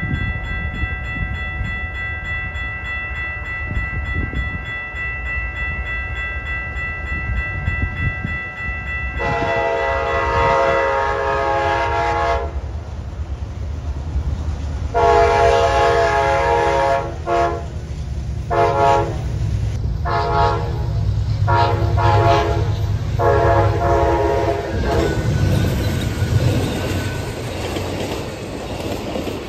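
Amtrak diesel locomotive horn, first one long blast, then a run of long and shorter blasts, the warning sounded on approaching a grade crossing. The train then rumbles close past, its wheels clicking over the rail joints. Before the horn there is a high, steady ringing tone.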